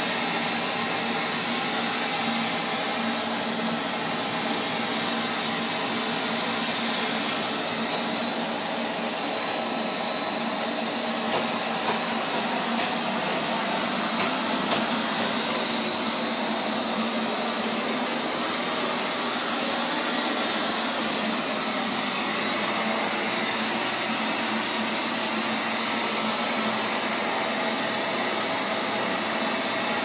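Robot vacuum cleaner running on a tiled floor: a steady motor and fan whine with the hiss of suction, even in level throughout. A few short clicks sound a little before the middle.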